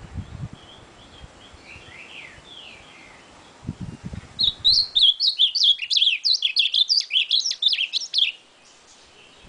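Male ultramarine grosbeak (azulão) singing a loud, fast, warbling phrase about four seconds long, from a little over four seconds in. Softer chirps and a few low thumps come before it.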